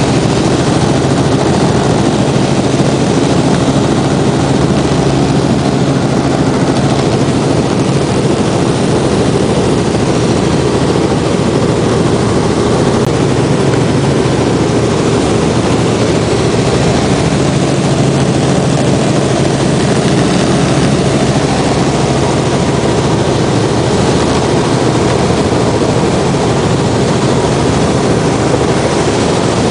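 Cabin noise of a Robinson R44 Clipper II helicopter in cruise flight, heard from inside the cabin: the piston engine and rotors make a loud, even rush with a steady low hum under it.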